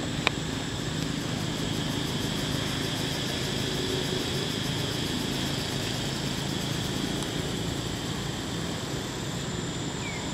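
A steady low drone, like a distant engine, over outdoor background hiss, growing slightly louder in the middle. There is a single sharp click just after the start.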